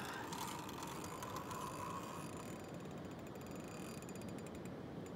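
Fishing reel ticking steadily as a big sturgeon is played on the line, with a faint whine over the first two seconds.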